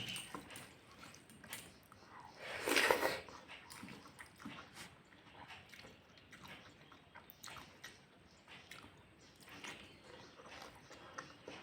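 Mouth sounds of eating egg curry and white rice: chewing and biting with scattered small clicks, and one louder, longer noise about three seconds in.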